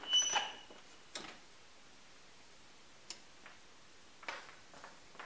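Oven door shutting with a metallic clank and a brief ringing tone right at the start. After it come a few scattered light knocks and clicks as a metal baking sheet is carried and set down on the counter.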